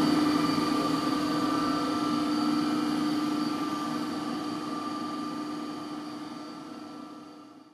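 K+G Wetter SM 45 STL 45-litre bowl cutter running on a test run, a steady mechanical whine with several constant pitches. The sound fades away gradually toward the end without slowing in pitch.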